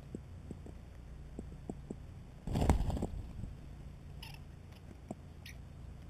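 European starlings feeding at a mealworm feeder, with light pecking taps on the bucket. About two and a half seconds in comes a brief loud flurry, likely wing flaps as a starling takes off close to the microphone, and near the end there are two short high bird calls.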